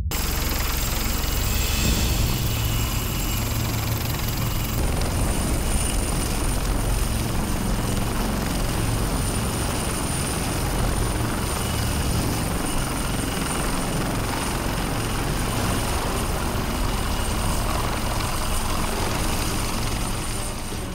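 AgustaWestland AW-159 Wildcat helicopter hovering, its rotors and engines running steadily. A steady high whistle joins about five seconds in.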